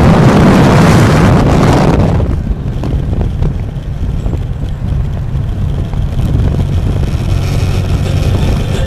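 Motorcycle on the move at road speed: wind rushing over the microphone, loudest for the first two seconds, then settling into a steady low drone of engine and road noise.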